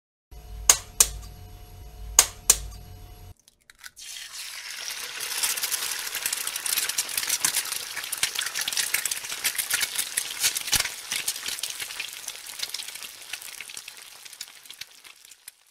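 Four sharp clicks in two pairs, then an egg frying in a pan: a dense crackling sizzle that starts about four seconds in and slowly fades away near the end.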